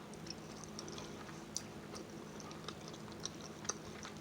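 Close-miked chewing of food: soft, irregular wet mouth smacks and clicks, over a low steady hum.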